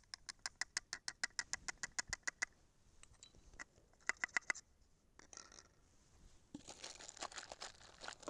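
Fingers tapping a plastic powder funnel seated on a Lee Loader's steel die: a quick even run of light taps, about nine a second for a couple of seconds, then a shorter burst of taps, then a rustling scrape near the end as the funnel is lifted off.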